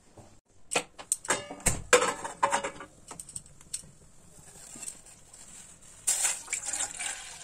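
Kitchenware being handled: a quick run of sharp clicks and knocks, a few of them briefly ringing, over the first few seconds, then a short rushing noise about six seconds in.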